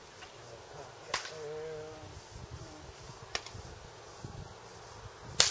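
A BB gun styled as an M4 carbine: two sharp clicks of the gun being worked, then a weak snap of a shot near the end with a short ring after it.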